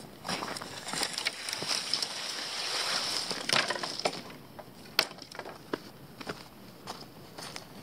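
Crunching and rustling in dry leaf litter, bark and sticks: for the first few seconds a long dead branch is dragged over the ground, then footsteps crunch on the litter with one sharp snap about five seconds in.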